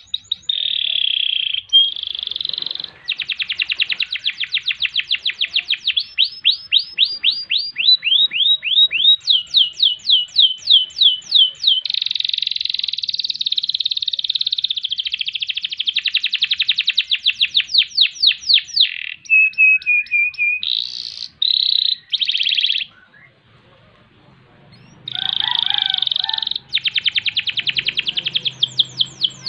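Domestic canary singing a long song of fast rolling trills and runs of rapidly repeated sweeping notes, with a pause of about two seconds near the end.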